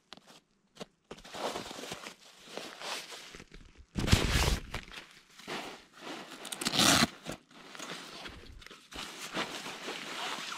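Nylon fabric rustling and crinkling as a Nemo Tensor sleeping pad, with its insulated space-blanket layers, is pulled from its stuff sack and unrolled by hand, with two louder scraping rustles about four and seven seconds in.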